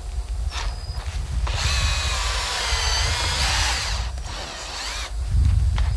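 Cordless drill pre-drilling a hole into knotty, hard pallet wood. The motor whine wavers in pitch as the bit labours, for about two seconds, then dies away.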